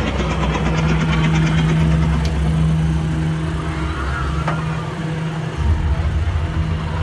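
Kiddie helicopter ride's drive machinery running with a steady low hum and drone as the ride turns.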